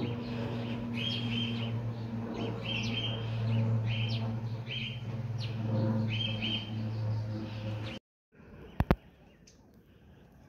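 Small bird chirping repeatedly, a short rising two-part call every second or so, over a steady low drone. The sound cuts off about eight seconds in, and two sharp clicks follow.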